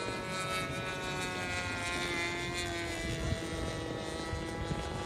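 Engine and propeller of a 40%-scale L4 Grasshopper radio-controlled model plane flying overhead: a steady drone whose pitch eases down a little about two seconds in.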